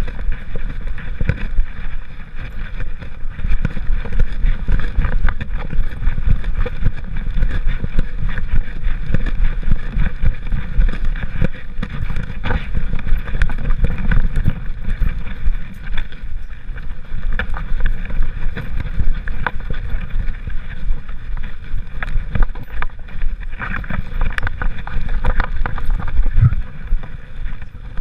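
Continuous muffled rumbling and rubbing of a GoPro camera strapped to a walking dog's back, jostled by the dog's steps, with many small knocks and some wind on the microphone.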